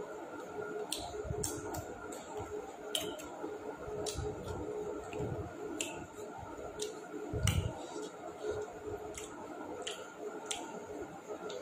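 A person eating a meal: irregular wet clicks and smacks of chewing, with a few soft low thumps, the strongest about seven and a half seconds in, over a steady background hum.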